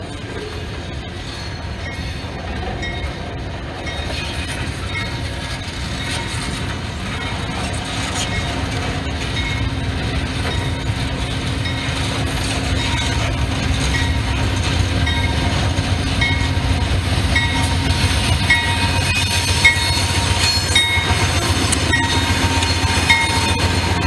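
Loaded freight train rolling past: open-top hopper cars clicking steadily as their wheels cross rail joints over a low rumble. A Pan Am Railways diesel locomotive at the rear brings a growing engine drone, and the sound gets steadily louder toward the end.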